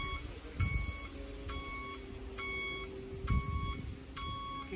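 Reversing alarm on a small tug vehicle beeping at an even pace, a little more than once a second, while it moves a tram, over a low rumble.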